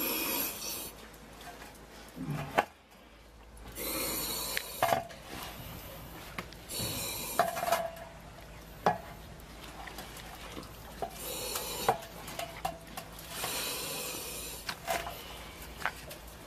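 Thick liquid manure sloshing and splashing as a person in a rain suit moves through it, in short wet bursts every few seconds, with scattered small knocks.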